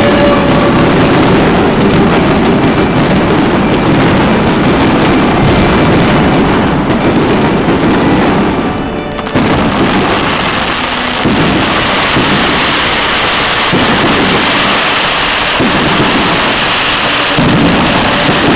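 A dense barrage of fireworks: overlapping bangs and crackling run together into a steady rumble. It eases briefly about halfway through, then builds again.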